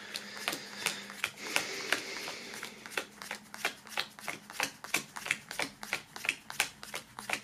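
Stack of card-like stickers being counted off one by one onto a wooden tabletop: a quick run of light taps and card slaps, about three a second.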